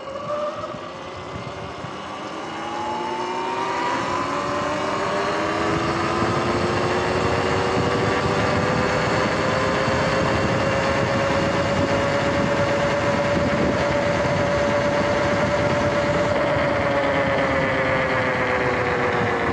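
Electric dirt bike's motor and drivetrain whining as it accelerates from a stop, the pitch climbing for several seconds, then holding steady at cruising speed and easing down slightly near the end. Wind and tyre noise run underneath.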